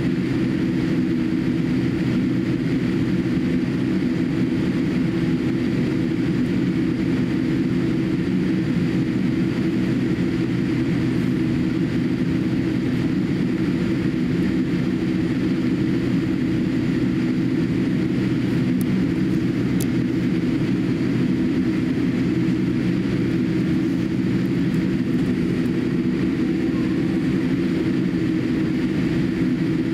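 Steady cabin noise of a Boeing 787-8 airliner taxiing with its engines at idle, heard from inside the passenger cabin: an even, mostly low hum with no change in level.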